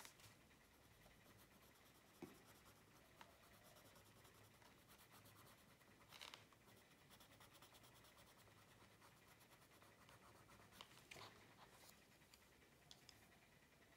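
Faint scratching of a coloured pencil shading on smooth paper, with a couple of slightly louder strokes.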